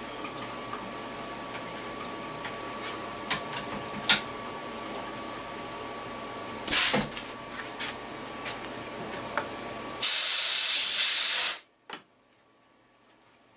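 Sharp metal clinks from handling and fitting a tool holder into a CNC mill's spindle, over a steady machine hum. About ten seconds in comes a loud burst of compressed air hissing for about a second and a half, after which the hum stops and one more click follows.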